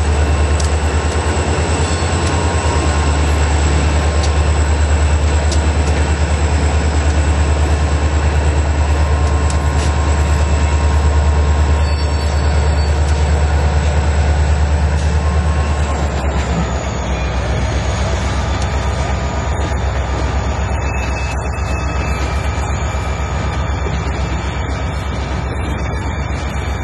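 Union Pacific diesel-electric freight locomotives running past, a steady deep engine rumble that drops somewhat about two-thirds of the way through as they move off.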